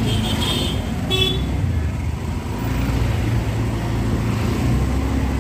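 Busy city street traffic: a steady low rumble of engines with motorbikes and cars passing close by. Short high horn toots come in the first second and again at about a second in.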